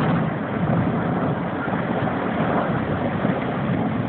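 Severe storm wind, a loud, steady rushing noise.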